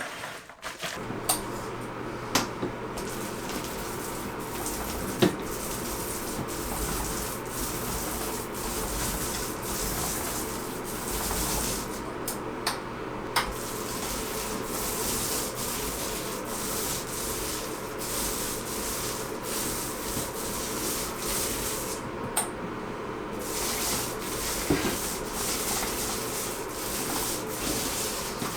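Paint roller rolling over a wall: a steady rubbing with a few light clicks.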